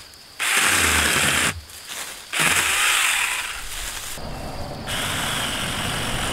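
Saker 4-inch mini cordless electric chainsaw running in short bursts as it cuts through poplar saplings: two bursts of about a second each, then a longer, steadier run that carries on past the end.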